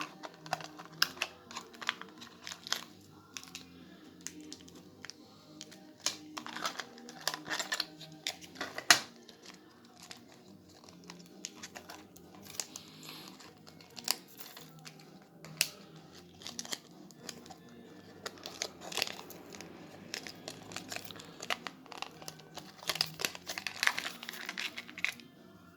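Servo packaging being opened and handled by hand: irregular crinkling, rustling and tearing of wrapping with scattered sharp clicks, the sharpest about nine seconds in. Quiet background music plays underneath.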